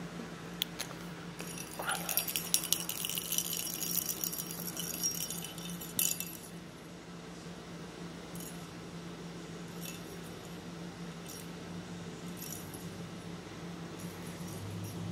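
Small bell inside a hollow plastic cat-toy ball jingling and rattling for about five seconds, starting a second or so in. After that come only a few faint ticks over a low steady hum.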